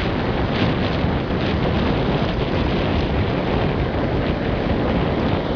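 Wind buffeting the microphone as a loud, steady rush and rumble, over the wash of shallow surf running up the sand.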